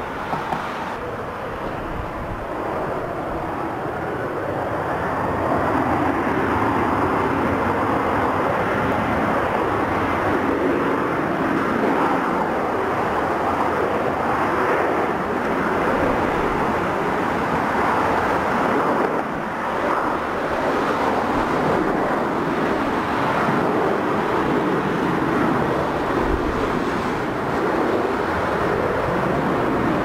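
Turbofan engines of a KLM Cityhopper Embraer regional jet at take-off power during its take-off roll, a steady jet noise that builds over the first few seconds and then holds.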